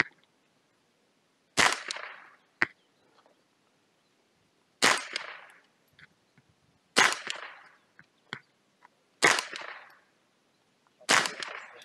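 Five single shots from a Ruger 10/22 .22 LR semi-automatic rifle, about two to three seconds apart, each followed by a short echo. Fainter sharp ticks fall between some of the shots.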